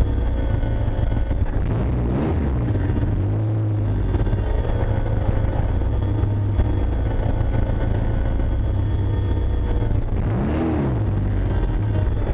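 Car engine running with a loud, steady low drone, its pitch rising and falling twice.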